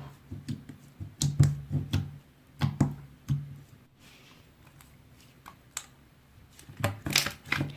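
A scattering of short, irregular clicks and taps, like typing, most of them in the first few seconds and again near the end, with a quieter stretch in between.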